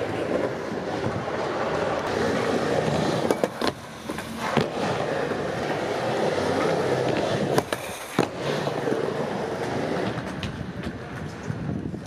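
Skateboard wheels rolling steadily over a smooth concrete skatepark surface. There are sharp clacks of the board hitting the ground a few times around the middle.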